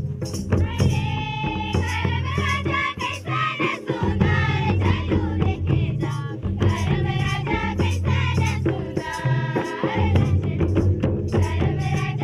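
Folk music: a group of voices singing over a steady drum beat with rattling percussion.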